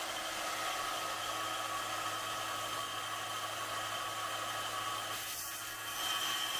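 Ridgid wet tile saw running with a steady motor whine as a concrete tile is fed toward its diamond blade; near the end the sound grows louder as the blade starts into the tile.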